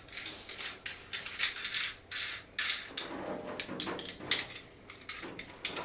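Irregular small metallic clicks and scrapes of a stainless steel wall-mount faucet being handled and fitted onto its wall elbow fittings.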